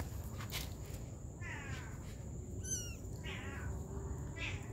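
Kitten mewing repeatedly: short, high calls that fall in pitch, about four of them, one higher and sharper near the middle.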